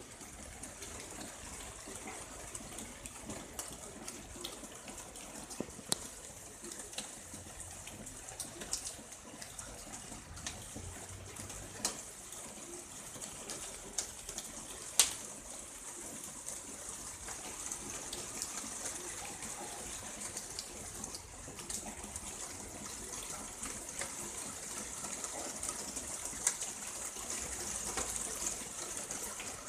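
Very fine rain falling steadily, a soft hiss with scattered sharper ticks of drops, the loudest about halfway through.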